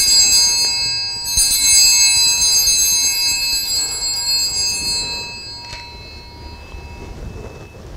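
Altar bells shaken at the elevation of the consecrated host during Mass: bright, high ringing, rung again about a second and a half in, then fading away by about six seconds in.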